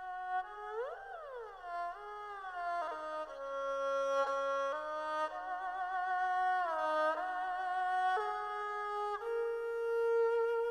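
Background music: a slow melody on a single instrument, with held notes that slide smoothly from one pitch to the next.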